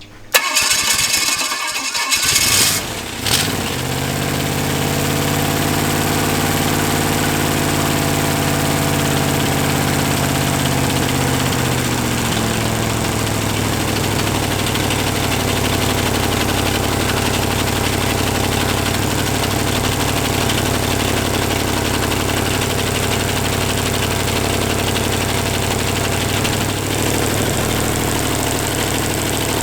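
283 small-block Chevy V8, running on only one cylinder head (four cylinders), cranks and sputters for about three seconds, then catches and idles steadily.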